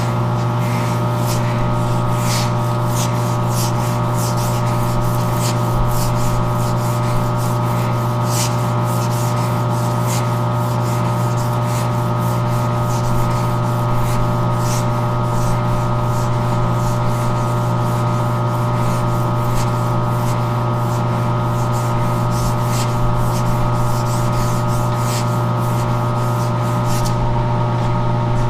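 A metal lathe runs with a steady hum while sandpaper is held against the spinning journal of an air-compressor crankshaft, polishing it. The grit on the metal gives a continuous irregular scratching rasp.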